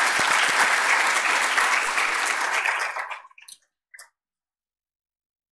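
Audience applauding, fading out about three seconds in.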